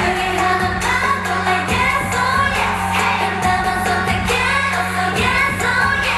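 K-pop song with female singing over a steady bass line and beat.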